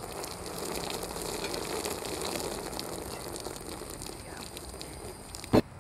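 Hot pasta water pouring from a metal container through a steel strainer and splashing onto the ground, a steady hissing splash that eases a little toward the end. Near the end there is one brief, loud knock.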